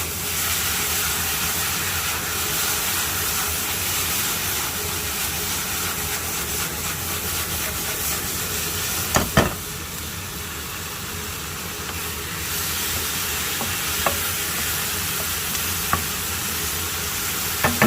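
Pork belly, onion and green onion sizzling in a frying pan with soy sauce just poured in to scorch slightly. A few sharp knocks of the stirring utensil against the pan, two together about halfway through.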